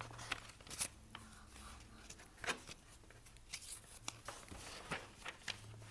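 Paperback picture-book pages being handled and turned by hand: soft paper rustles and scattered light taps and clicks.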